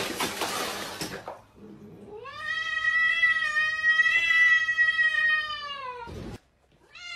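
A cat gives one long, drawn-out yowl of about three and a half seconds that holds its pitch and drops at the end; a second yowl begins near the end. Before the yowl, about a second of water splashing.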